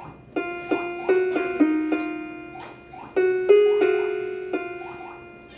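Casio electronic keyboard playing a slow melody on its harp voice. Each note is plucked and rings out, fading away, and one note in the middle is left to ring longer.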